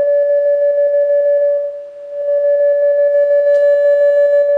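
Steady mid-pitched sine-wave test tone from a Heathkit audio generator, fed into the phono input of an RCA Victor RC-618B tube radio chassis and played through its audio amplifier. This is a check of the amplifier section. The tone dips briefly about two seconds in, then comes back at full level.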